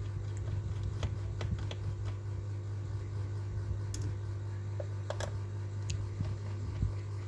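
A few separate light clicks and taps, like small laptop parts or tools being handled, over a steady low hum.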